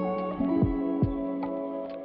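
Background music: an instrumental track with plucked guitar notes over a steady beat.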